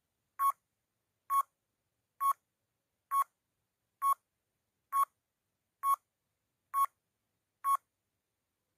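Countdown timer sound effect: nine short electronic beeps, evenly spaced at just under one a second, one for each number as the timer counts down to the answer.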